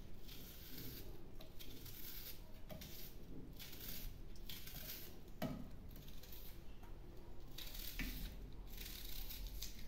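Small knife slicing through a raw red onion held in the hand, the slices dropping into a stainless steel pot of oil: a string of short crisp cuts, irregular, about one or two a second.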